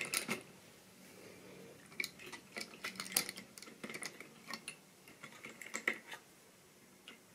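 Model railway brake van and wagons being handled and set on the track: light, scattered clicks and ticks of small wheels and couplings against the rails, in clusters over the first six seconds, then near quiet.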